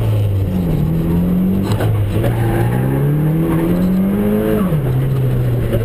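Drift car's engine heard from inside the cabin under hard driving: the revs dip and pick up, then climb steadily for about two and a half seconds before dropping sharply about a second before the end.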